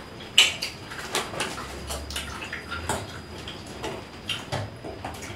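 Mouth sounds of lollipop sucking: a scatter of short, wet clicks and smacks.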